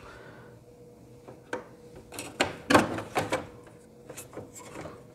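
Plastic clicks, knocks and rubbing from an HP Laser MFP 135wr laser printer's covers being lifted and handled, in a run of sharp clicks in the middle and a few lighter ticks near the end.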